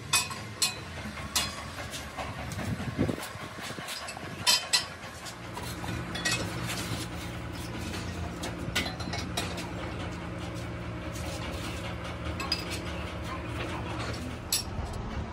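Sharp metal clinks and knocks as a heavy truck brake drum is handled and clamped onto a lathe chuck with the chuck key. A steady low machine hum runs underneath from about five seconds in.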